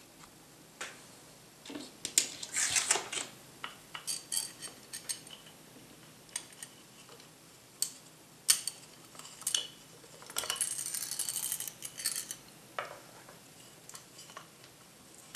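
Small homemade wooden vise being handled and adjusted: a series of sharp wooden clicks and knocks, with a rattle lasting about two seconds a little past the middle.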